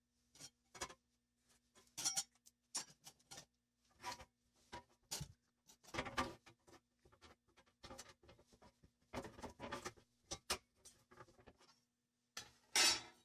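Thin metal sheet being handled and moved about on a wooden board: a scatter of light clanks and taps, the loudest near the end, over a faint steady hum.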